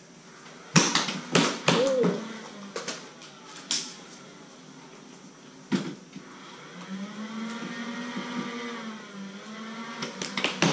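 Nerf foam-dart blasters firing and darts striking: a quick run of sharp snaps and knocks in the first two seconds, then single ones a second or two apart. After that comes a low hum that rises and falls in pitch for several seconds, and more snaps near the end.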